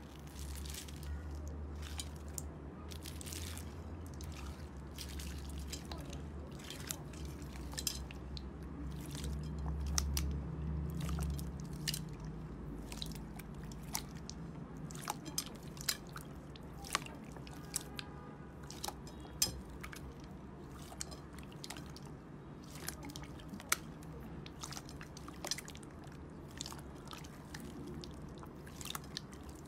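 Hands squeezing and kneading clear slime packed with small foam beads: the beads crunch and crackle in many scattered sharp clicks, with squishing. A low hum sits underneath and fades out about twelve seconds in.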